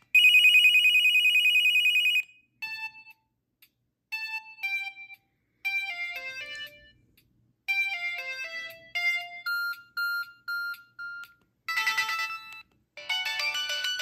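Samsung Alias U740 cell phone's speaker playing its preloaded electronic ringtones one after another, each previewed briefly and cut off. It opens with a rapid high trill for about two seconds, then short beeping note melodies with pauses between them, and a fuller, busier melody starts near the end.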